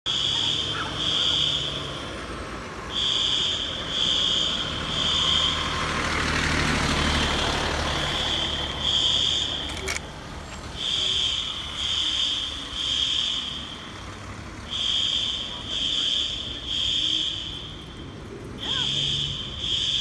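Building fire alarm sounding in the temporal-three pattern, the standard evacuation signal: three high beeps about a second apart, a short pause, then again, repeating. A fire engine's motor runs low underneath, strongest in the first half, with a burst of hiss about six to eight seconds in.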